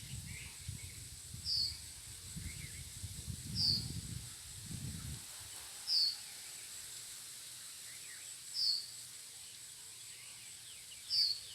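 Wind buffeting the microphone as a low rumble for the first few seconds, then dying down. Through it a bird repeats a short high call, five times, about every two and a half seconds.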